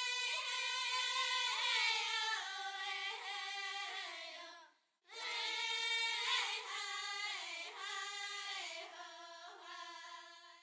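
A small group of students singing together, two long sung phrases with a short break about five seconds in.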